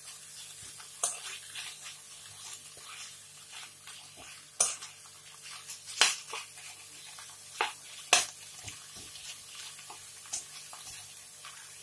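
Metal spoon stirring and scraping pork pieces in curry paste around a coated wok, with a handful of sharp, irregular clinks against the pan over a low, steady sizzle of frying.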